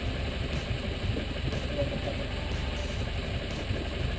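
A boat's engine idling steadily with a low rumble, the boat held at slow trolling speed while a hooked fish is fought.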